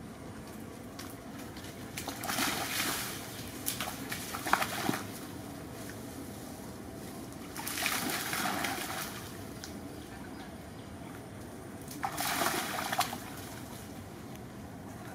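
Young macaques splashing through a shallow muddy puddle, in four short bursts over a steady low background hiss.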